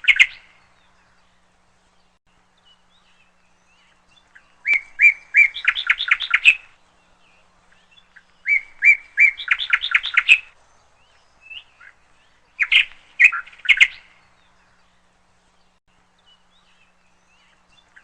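A bird calling in short bursts of rapid chirps, each phrase lasting a second or two and repeated about every four seconds, three times.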